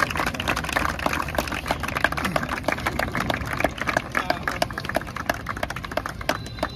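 A group of people clapping, a dense, uneven patter of handclaps that thins out near the end.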